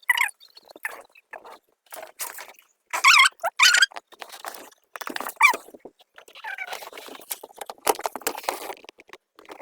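Rat squeaking in short, irregular bursts of high squeaks and chitters.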